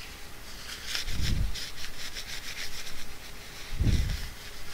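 Wad of tissue scrubbed quickly back and forth over a TV remote's circuit board, a run of fast rasping strokes, cleaning the board. Two dull low thumps come about a second in and near the end.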